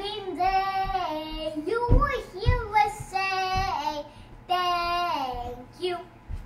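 Young children singing a song, the notes held and sliding between pitches, with a couple of low thumps about two seconds in.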